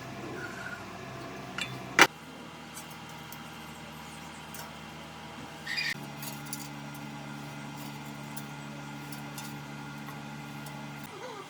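Light metal clinks and handling knocks, with one sharp knock about two seconds in, over a steady low hum that grows stronger from about six seconds in and stops just before the end.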